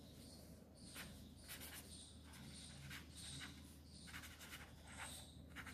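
Pen writing by hand on paper: faint, irregular scratchy strokes.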